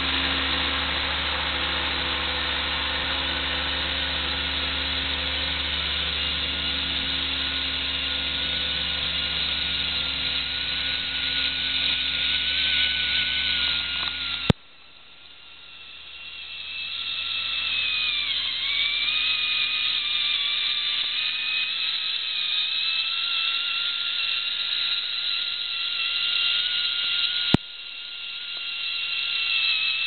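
Compressed-air cable-blowing equipment running as a cable is blown down a plastic sub-duct: a steady rushing hiss with a thin whine that now and then dips in pitch and recovers. A low steady hum runs under it in the first half, and the sound drops abruptly about halfway through before building back up.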